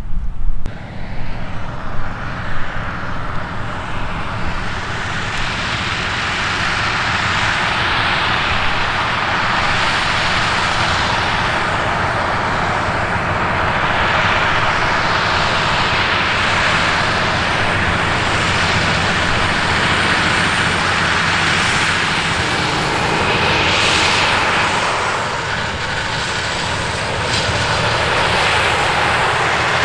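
Heavy farm machinery running close by: a loud, steady machine noise with a faint high whine above it.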